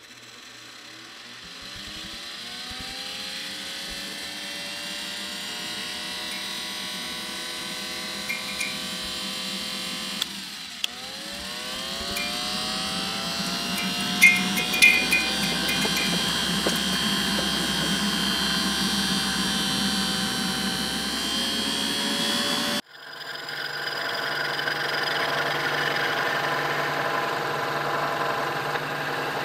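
1914 F. Bissell combination vacuum-grinder's electric motor starting up, its whine rising in pitch as it gets up to speed. About ten seconds in it slows and winds up again. Near the end it runs at a steady pitch.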